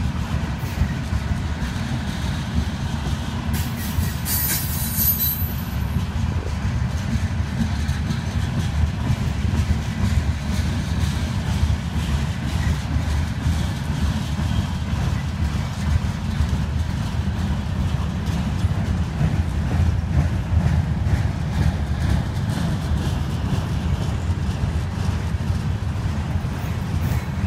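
Freight cars, open-top gondolas and coil steel cars, rolling past close by: a steady low rumble of steel wheels on the rails. A brief high-pitched wheel squeal comes about four seconds in.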